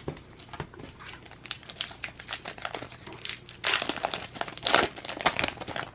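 Crinkling of a trading-card pack's plastic wrapper as it is handled and torn open, an irregular run of crackles that grows louder after about three and a half seconds.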